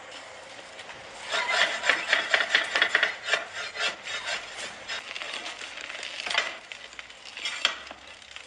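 Rapid scraping and clinking of metal on metal, a dense run of short clicks that is loudest from about one to three seconds in, then thins to scattered clicks.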